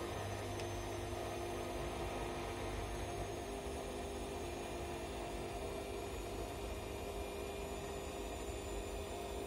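Bosch Classixx 6 front-loading washing machine running in its Sudslock phase: a steady hum with a lower tone that fades about three seconds in. Sudslock is the machine's response to detecting too much foam in the drum.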